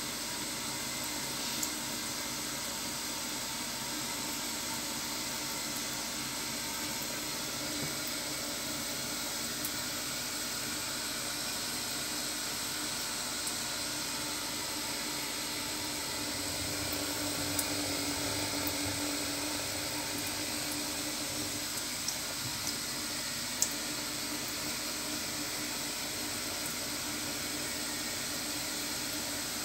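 Kitchen tap running steadily into a stainless steel sink, with a few small ticks.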